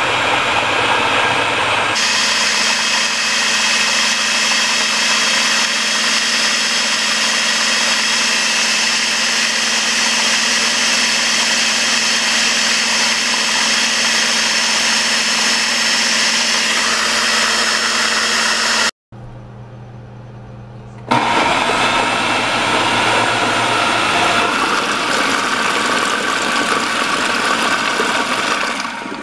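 Electric food processor running steadily, its blade blending avocado and melted chocolate into a thick pie filling. The motor stops briefly about two-thirds of the way through, starts again, and stops near the end.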